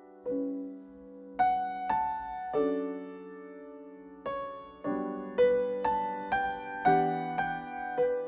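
Slow, soft piano music: single notes and chords struck one after another and left to ring out.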